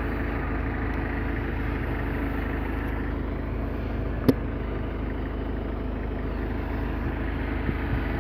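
Diesel engine of a Caterpillar tracked excavator running steadily, with a single sharp knock about four seconds in.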